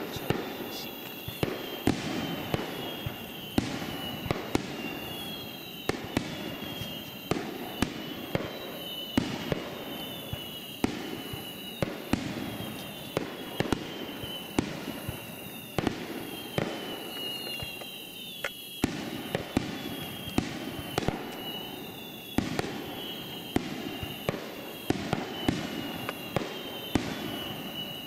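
Aerial firework shells bursting in a continuous barrage of sharp bangs, about one to two a second. A steady high-pitched tone runs underneath.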